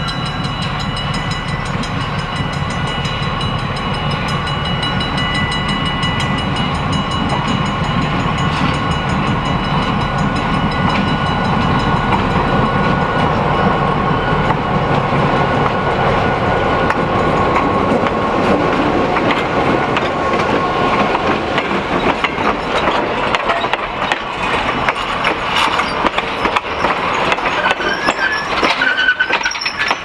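EMD GP7 diesel locomotive with a 16-cylinder two-stroke engine, running as it approaches and passes at close range. The steady tones of its air horn fade out over the first several seconds. In the second half, wheels of the passenger coaches click and clack over the rail joints.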